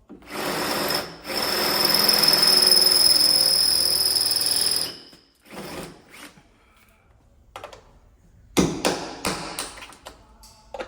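Handheld power tool run in two trigger pulls, a short one and then a steady run of about three and a half seconds with a high whine, stopping about five seconds in. Several sharp clanks and knocks of metal work follow near the end.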